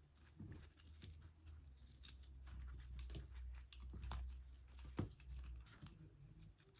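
Faint scattered clicks and scrapes of a small screwdriver pushing seatbelt webbing through the slot of a seatbelt buckle, over a low hum that stops near the end.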